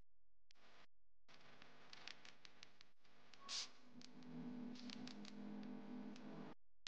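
After about a second of silence, faint scattered clicks of metal knitting needles working stitches, with a brief soft hiss about halfway and a low steady tone in the second half.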